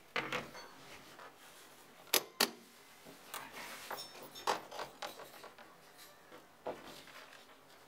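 The two metal latches of a hard-shell suitcase snap open about two seconds in, a quarter second apart, followed by scattered knocks and rustling as the lid is lifted and a sheet of paper inside is folded back.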